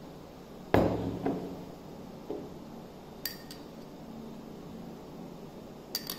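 A small glass bowl set down on a tabletop with a knock, followed by a few lighter glass clinks.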